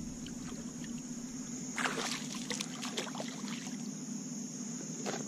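Hooked bass splashing and sloshing at the surface beside a kayak as it is reeled in, with the sharpest splashes about two seconds in. A steady high insect chirring sounds behind it.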